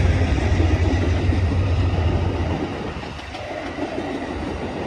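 Passing Amtrak passenger train: a deep diesel rumble from the departing GE Genesis locomotives fades out about two and a half seconds in, leaving the quieter noise of double-deck Superliner cars rolling past on the rails.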